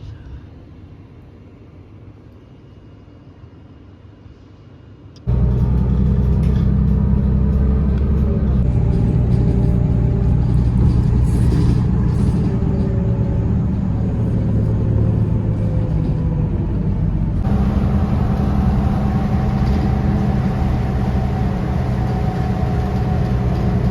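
Low, steady engine and road rumble heard from inside a moving bus. It starts abruptly and loud about five seconds in, after a quieter stretch, and runs on evenly.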